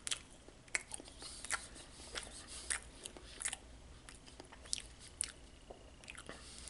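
Close-up chewing of a mouthful of cotton candy donut with sprinkle frosting: faint, irregular wet clicks and smacks of the mouth, a couple each second.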